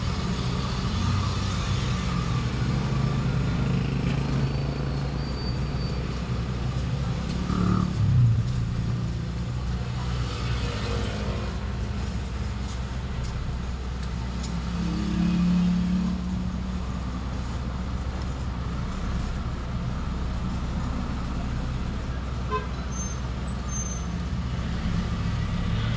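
Steady low rumble of motor vehicle traffic, swelling around the middle, with a single thump about eight seconds in.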